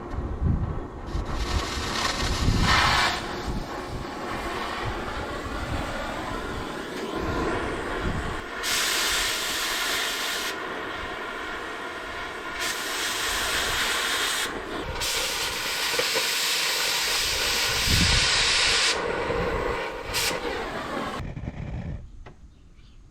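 Cutting torch hissing as it roughs slots into the steel ears of a mower deck hanger, with three louder bouts of high hiss; it cuts off abruptly about 21 seconds in.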